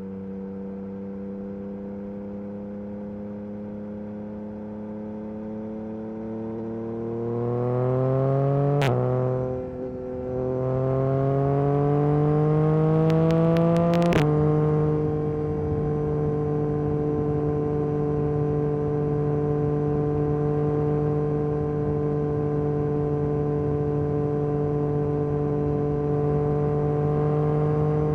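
Yamaha MT-09 SP's inline three-cylinder engine through an Akrapovic carbon exhaust, running steadily, then revving up through the gears. It makes two upshifts, about nine and fourteen seconds in, each a sudden drop in pitch, then settles into a steady cruise.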